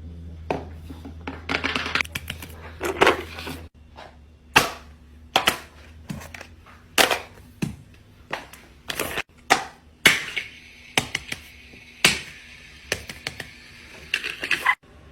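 A run of sharp clicks and snaps from small objects being handled, coming irregularly about once every half second to a second.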